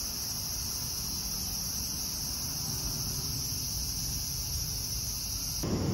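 Insects chirring in a steady, high-pitched drone that cuts off near the end.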